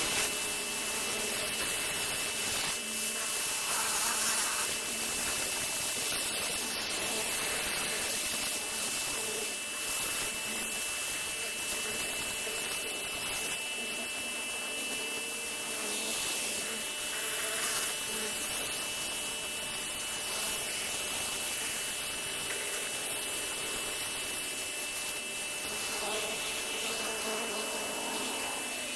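Pressure washer running, a steady hiss of spray with a constant high whine.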